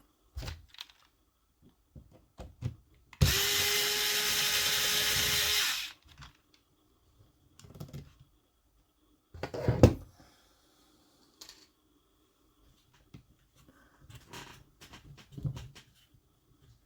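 A small cordless electric screwdriver runs steadily at one pitch for nearly three seconds, backing out a screw from the RC car's shock mount. Short clicks and knocks of small parts and tools being handled come before and after it, with one sharper knock about ten seconds in.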